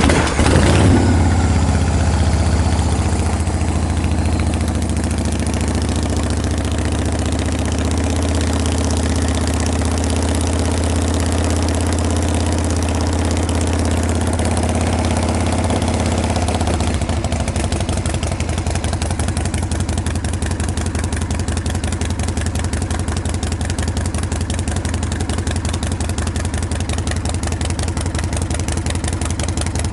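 Harley-Davidson Shovelhead 74-inch V-twin on straight pipes firing up from stone cold with the enrichener pulled and settling into a fast idle. About seventeen seconds in, the idle drops to a slower, evenly pulsing beat.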